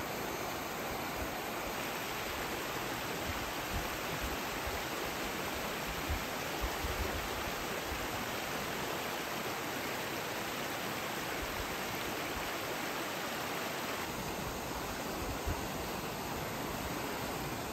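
Shallow river water flowing over a stony bed: a steady rushing and babbling.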